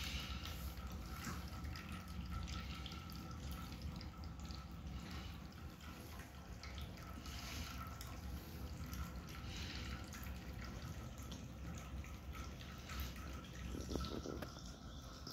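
Several cats eating wet cat food from bowls: quick, irregular, wet clicks of chewing and licking, over a low steady hum.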